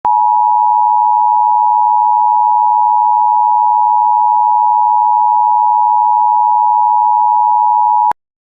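Emergency Alert System attention signal: a loud, steady two-tone electronic tone near 1 kHz (the 853 Hz and 960 Hz pair) held for about eight seconds, then cutting off abruptly. It signals that an emergency alert message follows.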